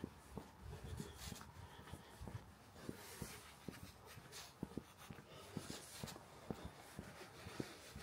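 Footsteps of a person walking at a steady pace: soft, regular thuds, under a faint hiss with brief rustling.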